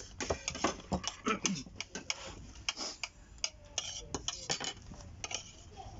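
Metal cutlery clinking and scraping on plates during a meal: a run of short, irregular clinks and knocks.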